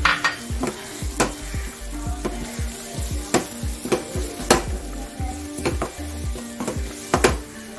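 Wooden spatula scraping and knocking against a nonstick frying pan, about two irregular strokes a second, as a thick tomato-onion masala is stirred. The masala sizzles as it fries.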